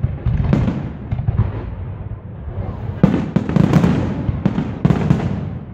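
Aerial firework shells bursting overhead: a string of sharp bangs with crackling, the loudest about three seconds in, followed by a quick cluster of further bursts.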